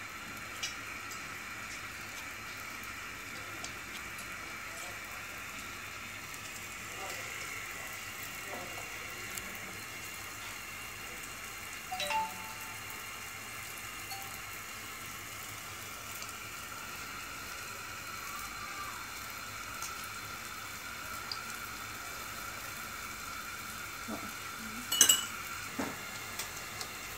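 Balls of yeast dough deep-frying in hot oil, a steady sizzle throughout. Metal utensils clink against the pot about twelve seconds in, and there is a louder clank near the end.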